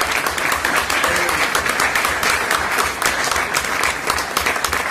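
Audience applauding: many hands clapping together.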